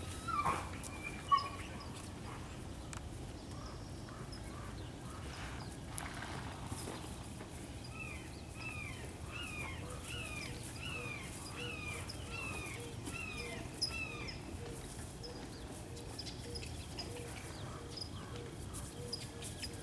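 Outdoor ambience with birds. A bird calls a run of about a dozen down-slurred notes, roughly two a second, from about eight seconds in for six seconds, while other birds chirp faintly now and then. A single sharp click comes just over a second in.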